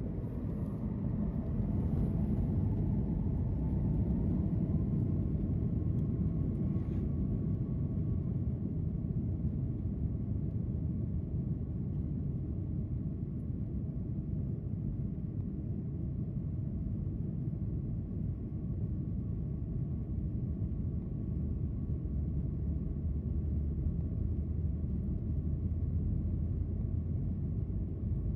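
Boeing 737 MAX 8 airliner cabin noise: a steady low rumble of the jet engines and airflow, with a faint high hum.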